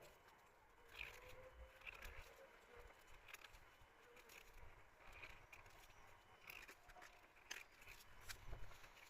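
Near silence, with faint scattered small clicks and soft rubbing.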